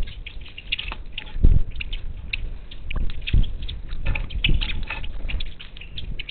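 Strong wind buffeting the microphone in gusts, loudest about one and a half, three and a half and four and a half seconds in, over a constant scatter of short, high clicks and chirps.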